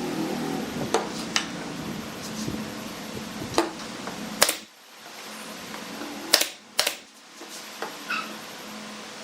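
Scattered sharp knocks and clicks, about eight in all, the loudest about four and a half seconds in, over a faint steady hum.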